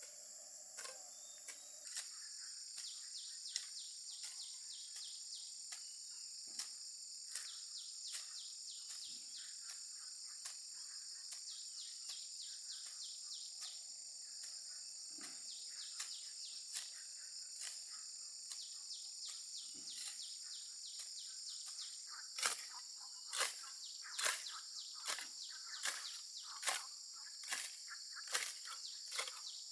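Steady high-pitched insect chirring, with a string of sharp knocks about once a second that get louder over the last several seconds.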